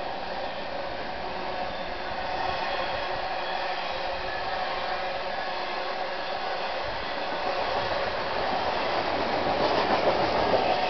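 Intermodal freight train's trailer and container cars rolling past on the track below: a steady rush of steel wheels on rail, growing a little louder near the end.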